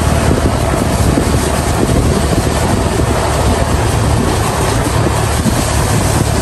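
Steady rush of wind on the microphone with a vehicle running underneath, heard from a vehicle moving along a wet road.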